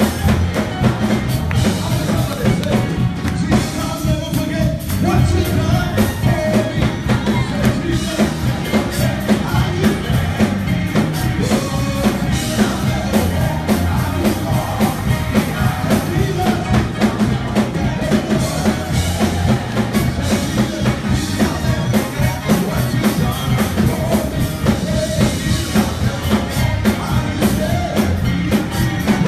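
Live gospel praise music: lead singers on microphones with backing singers over a band with a drum kit, keeping a steady beat throughout.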